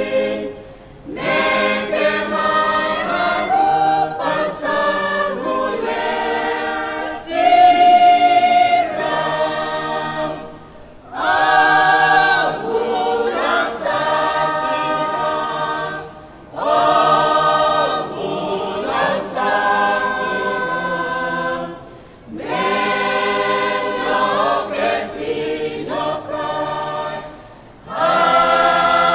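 Church choir of women and men singing a hymn in the Roviana language in several parts, unaccompanied, in phrases of about five to six seconds with short breaths between them.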